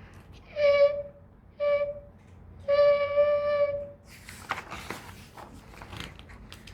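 Three held notes at one unchanging pitch with a flute-like tone, two short and then a longer one, followed by a couple of seconds of soft rustling and light taps.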